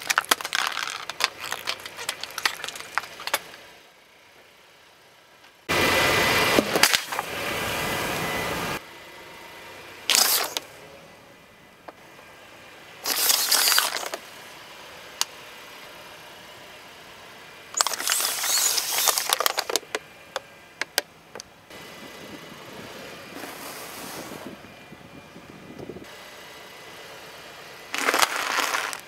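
A car tyre rolling over and crushing plastic objects and packaging: a series of separate crunching and crackling sounds several seconds apart, the longest and loudest a few seconds after the start.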